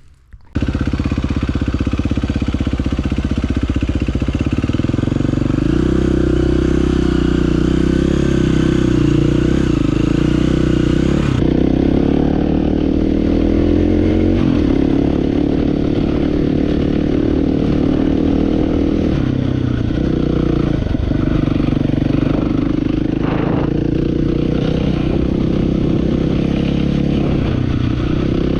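Dirt bike engine running hard through mud, its pitch rising and falling as the throttle is worked. It starts abruptly about half a second in.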